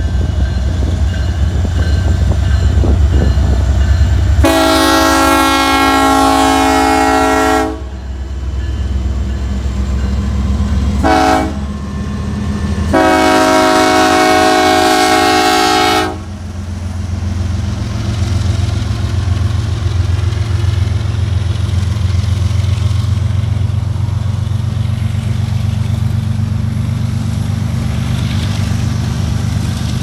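Norfolk Southern diesel freight locomotive sounding its air horn for a grade crossing: a long blast about four seconds in, a short one around eleven seconds, then another long one, over the steady low rumble of the diesel engines. After the horn the locomotives pass slowly and the train rolls on with the clatter of cars on the rails.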